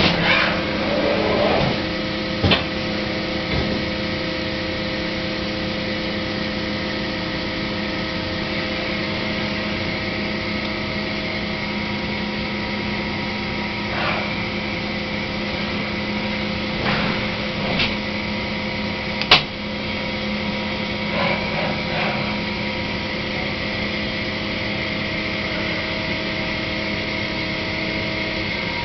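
Mazak Variaxis 630-5X five-axis CNC machining centre running: a steady machine hum of several held tones, with scattered clicks and knocks and one sharp click about 19 seconds in.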